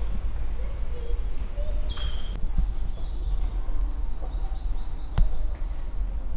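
Birds chirping, a few short high calls, over a low steady rumble. One sharp click about five seconds in.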